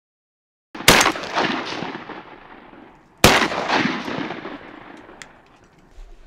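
Two shotgun blasts about two and a half seconds apart, the first about a second in. Each shot is followed by a long echo dying away across the open marsh, from duck hunters shooting at birds over the decoys.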